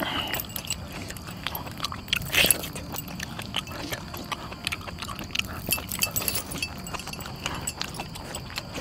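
A person eating with their hands: chewing and pulling apart cooked goat meat, with scattered small wet clicks and a louder rustling scrape about two and a half seconds in. A faint steady high tone sits underneath.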